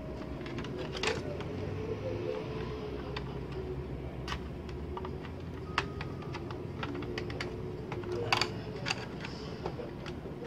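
Plastic parts of a Compaq Presario CQ61 laptop clicking and tapping as the speaker bar is unclipped and lifted out of the base: scattered sharp clicks, the loudest about a second in and again about eight seconds in, over steady low background noise.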